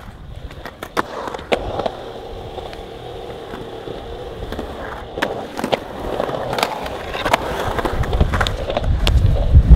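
Skateboard rolling on concrete, with scattered sharp clacks of the wheels and board. The rolling grows louder near the end.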